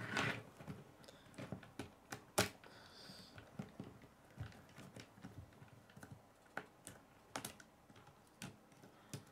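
Plastic K'nex pieces clicking and knocking as they are handled and snapped together, in irregular small clicks with a sharper click about two and a half seconds in and another near the end.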